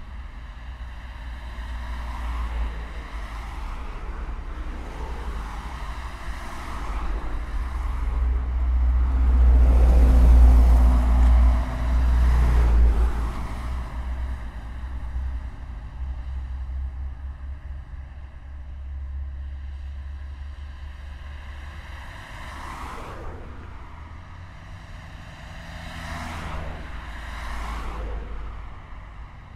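Dense road traffic: a continuous low rumble of vehicles, with cars passing close by. The loudest, deepest pass swells up about a third of the way in, and a few quicker pass-bys come near the end.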